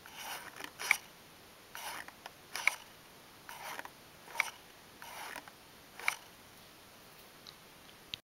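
Paper skull automaton worked by a finger pressing on its top: the folded paper mechanism scrapes and clicks with each press, four times, each a soft papery scrape ending in a sharp click.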